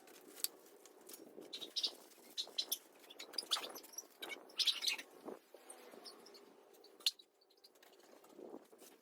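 Scattered light clicks and taps, most likely parts being handled while the mirror fittings go on, with faint bird chirps in the background. The sharpest click comes about seven seconds in.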